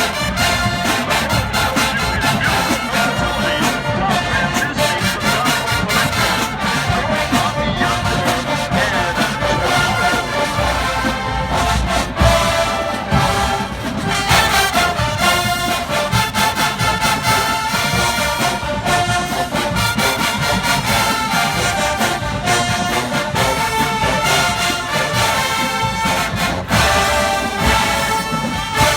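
Marching band playing: a full brass section of trumpets and trombones over a steady drum beat, loud and continuous, breaking off at the end.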